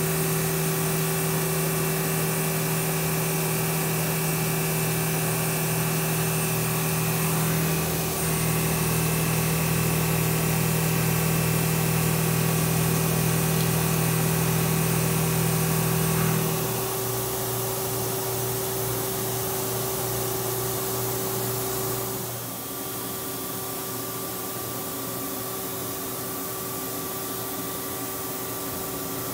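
CNC milling machine cutting a part under flood coolant: a steady spindle and cutting whine over the hiss of coolant spray. The pitch shifts about eight seconds in, and the whine stops about halfway through, leaving a lower steady machine hum and hiss.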